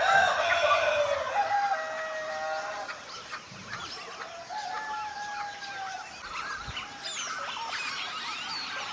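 A rooster crowing: one long, loud crow at the start, then a second, fainter crow about halfway through. Small wild birds chirp throughout.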